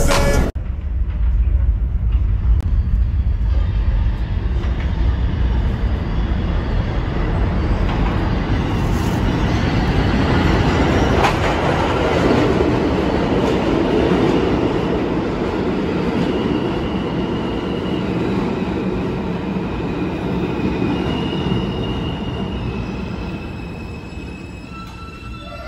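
New York City subway R train pulling into the station and braking to a stop, with a heavy rumble of wheels on track. As it slows over the last several seconds, high whining tones step up and down in pitch and the rumble fades.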